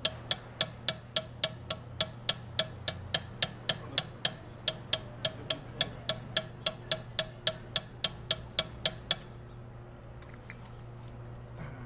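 A valve lapping stick is spun back and forth between the palms, seating a new valve on its seat in the cylinder head, giving sharp, regular scraping strokes about four times a second. The strokes stop about nine seconds in, leaving a faint steady hum.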